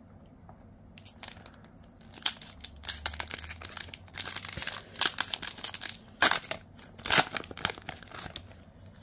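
Wrapper of a Select AFL Footy Stars 2024 trading-card pack being crinkled and torn open by hand: a run of irregular crackles and rips. The two loudest tears come about six and seven seconds in.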